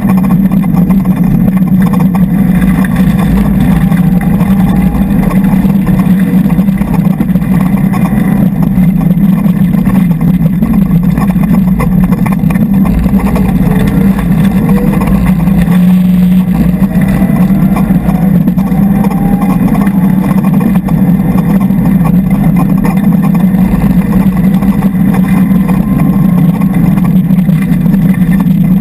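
Mitsubishi Lancer Evolution X rally car's turbocharged four-cylinder engine driven hard, heard from inside the stripped cabin, with a loud steady drone and the engine pitch rising and falling as it revs through the gears on a gravel stage.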